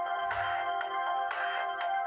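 A stock Samsung Galaxy A3 (2015) ringtone playing: an electronic tune of held notes over a beat about twice a second.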